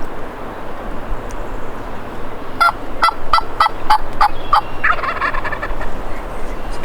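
Rio Grande wild turkey gobbler gobbling once, a rapid rattling series of notes lasting about two seconds, beginning about a third of the way in, with a short higher tail after it.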